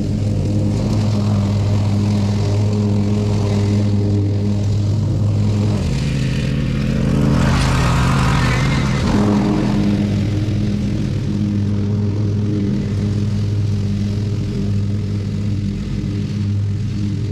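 Ride-on lawn mower running steadily while mowing, its engine hum and blade noise swelling as it passes close by about halfway through, then easing off as it moves away.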